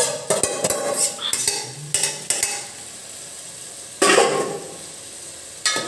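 A steel spoon clicks and scrapes against a steel bowl as boiled cauliflower pieces are tipped into a pot of hot oil and masala, which sizzles. A sudden louder rush comes about four seconds in and fades over a second.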